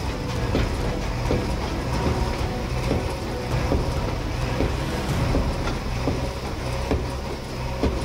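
JCB backhoe loader's diesel engine running steadily under load as its backhoe bucket breaks down a brick-and-concrete wall, with repeated knocks and cracks of masonry coming apart.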